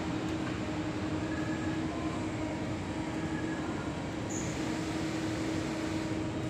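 Steady mechanical hum and noise of a factory floor, with a constant low tone.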